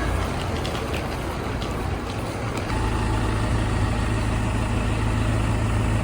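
A bus engine runs with a steady low drone that gets louder and stronger about three seconds in. There are a few light clicks and knocks in the first two seconds.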